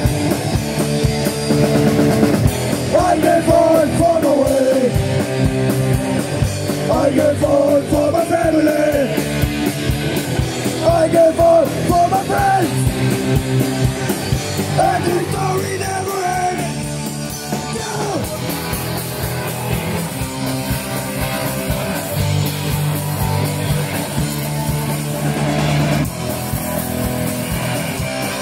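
A live punk rock band playing loud, with distorted electric guitars and bass guitar. A wavering melody line runs over the first half, then the song settles into steady chords about two-thirds of the way in.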